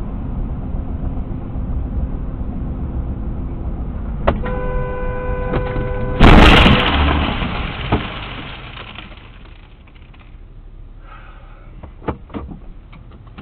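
Steady road noise inside a moving car, then a car horn held for about two seconds, cut off by the loud crash of a collision that rings away over a couple of seconds. A second knock follows, then the car's noise dies down as it slows and stops.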